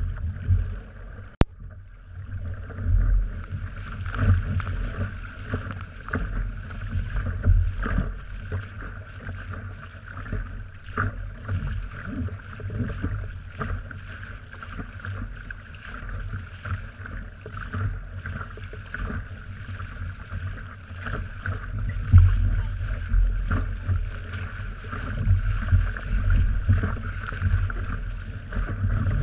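Wind buffeting the microphone over open water, an uneven low rumble that rises and falls in gusts, with a steady higher hum underneath and a single sharp click about a second and a half in.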